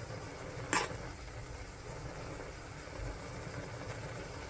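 Pot of jjajang instant noodles boiling on the stove, a steady low bubbling, with a single short utensil tap a little under a second in.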